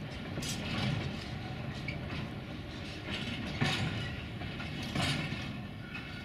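Train rolling slowly through the yard, its wheels clacking over rail joints in pairs of knocks every second or two, over a steady rumble.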